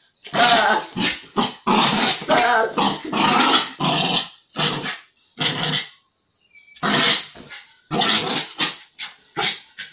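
Small fluffy dog growling and barking in rough play, a dense run of short growly bursts for the first few seconds, then separate growls and yaps with short pauses between them.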